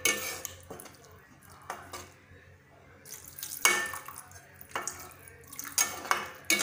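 Water poured from a glass into a nonstick pan of fried onion-tomato masala, with a metal slotted spatula knocking and scraping against the pan as it is stirred in.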